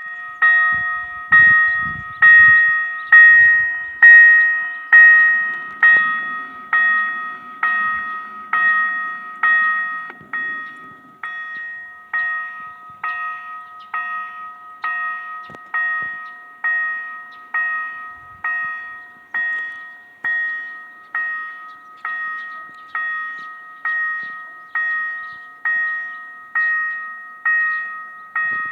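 Railway level-crossing warning bell ringing in an even, repeated ding, a little faster than one strike a second. The strikes are loudest in the first few seconds and settle to a steady level after about ten seconds.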